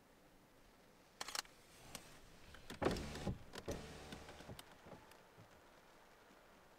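A few sharp camera shutter clicks about a second in. Then a small electric motor whirs for about a second, with a few knocks and clicks around it.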